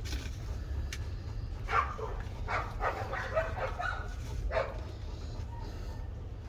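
A dog barking and yipping in short bursts, a few times around the middle, over a steady low rumble.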